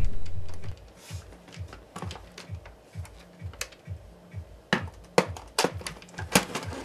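Background music with a low, repeating bass line, with sharp clicks scattered through it and a quick run of clicks in the last two seconds.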